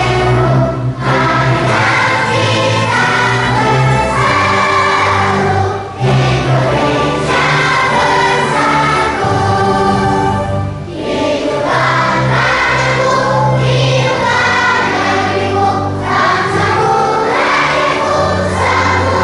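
Massed choir singing a formal anthem in unison with instrumental accompaniment, in long held phrases with short breaks between them.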